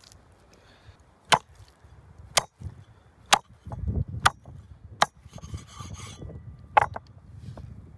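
A knife cutting raw beef rib on a wooden stump chopping board, with about six sharp knocks of the blade on the wood, roughly one a second, over the rustle of handling the meat.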